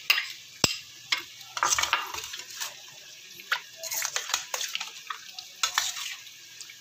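A metal spoon stirring yogurt into raw chicken pieces in a stainless steel bowl: irregular clinks and short wet scrapes against the metal.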